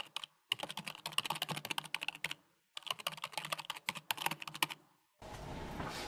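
Rapid computer keyboard typing in two bursts of about two seconds each, then it stops. A steady room hum comes in near the end.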